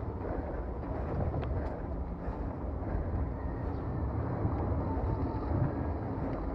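Wind rushing over the microphone and the tyres of a mountain bike with a rigid fork rolling over a dirt and rock trail, with a couple of sharp clicks from the bike about a second and a half in.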